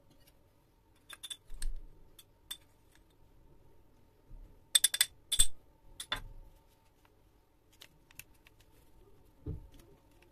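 Light clicks and taps of kitchen utensils against a plastic mixing jug as salt and vanilla sugar are added to milk and egg. The clicks are scattered, with the loudest a quick cluster about five seconds in. A soft low thump comes near the end.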